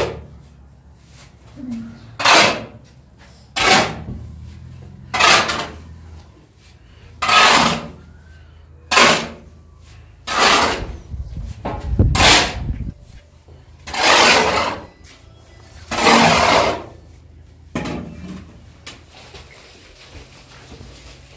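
Steel shovel scraping across a concrete floor as it scoops up dry white powder and loads it into a metal wheelbarrow, in about a dozen strokes every one and a half to two seconds.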